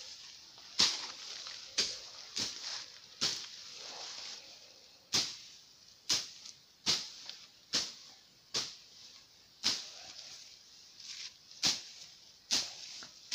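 Footsteps on a stony trail: sharp, short steps at an uneven pace of about one a second.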